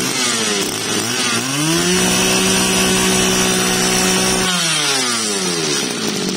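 Mitsubishi TL20 20cc two-stroke brush cutter engine running at idle, revved up about a second in, held at high revs for a couple of seconds, then let back down to idle near the end.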